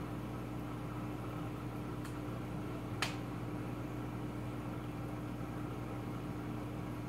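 Steady low hum of aquarium equipment running, with a single sharp click about three seconds in.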